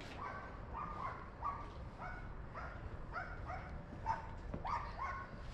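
Dog whining in a steady series of short, high-pitched yips, about three a second.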